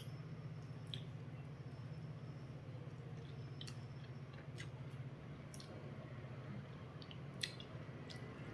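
Quiet eating by hand: soft chewing and mouth smacks with scattered small clicks as fingers work rice and fish in the bowls, one sharper click near the end. A steady low hum runs underneath.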